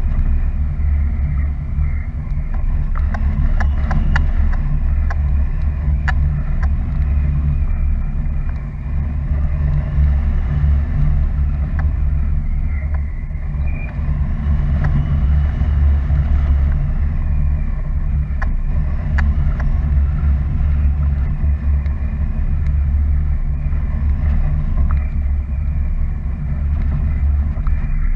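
Steady, loud wind rumble buffeting the camera microphone as a paraglider flies along, with scattered faint clicks.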